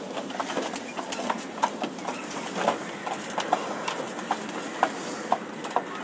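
Pigeons pecking at grain in their feed trays: quick, irregular tapping clicks of beaks on the trays, several a second.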